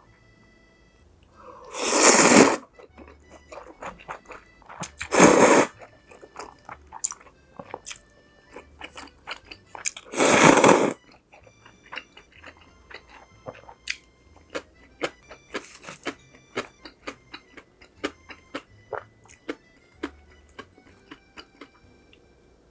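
Close-miked eating of Korean-Chinese noodles: three loud slurps of noodles, about 2, 5 and 10 seconds in, between stretches of chewing with many short wet clicks and crunches.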